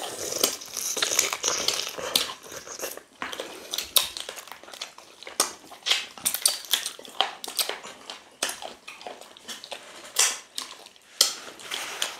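Two people chewing and smacking as they eat potato fufu and meat in ogbono soup by hand, with irregular wet clicks and crunches.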